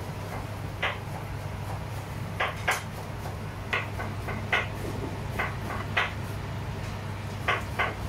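Light metallic clinks and knocks, one every half second to a second, from an aluminium steamer pot and its perforated tray as the steamed cups are handled, over a steady low hum.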